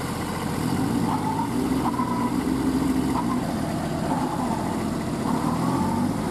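Engines of two cage-wheeled mini tractors running steadily under load as one tows a stuck Kubota out of deep mud on a rope. The engine note swells about a second in and eases again after about three and a half seconds.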